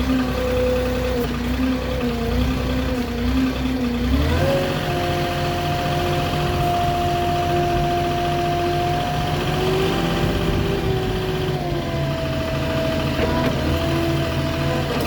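Moffett truck-mounted forklift's engine, just started, running with a steady whine. About four seconds in it steps up to a higher speed, then shifts speed again a couple of times as the machine gets under way.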